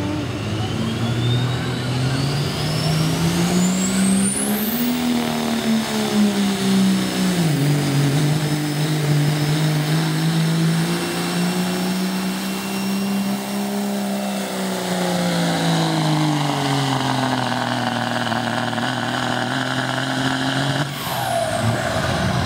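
Diesel pickup truck pulling a weight sled at full throttle. The engine runs hard at high revs, its pitch climbing and sagging under the load, with a high whistle rising steeply over the first few seconds. Near the end the engine note drops out and a whistle winds down as the pull ends.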